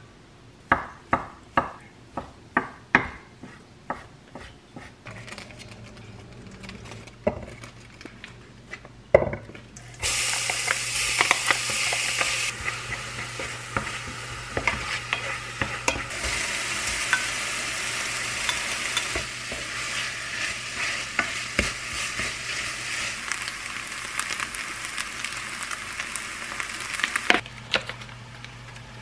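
A knife chops quickly on a cutting board, about six sharp strikes. About ten seconds in, chopped onion starts sizzling in hot fat in a frying pan and is stirred with a utensil, with small scrapes and taps against the pan. The sizzling cuts off shortly before the end.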